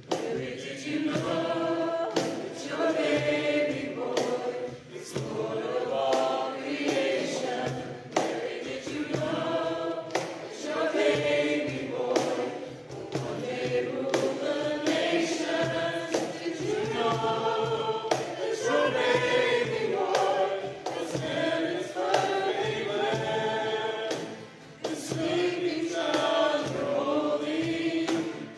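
Several voices singing a worship song together, with instrumental accompaniment.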